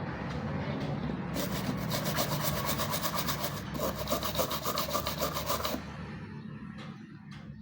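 A fan circuit board being scrubbed clean after resoldering: fast, even back-and-forth rubbing strokes that stop about six seconds in.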